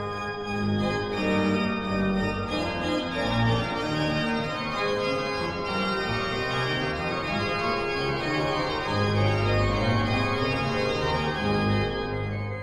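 Organ playing sustained full chords over a bass line whose notes change about once a second, at a steady level.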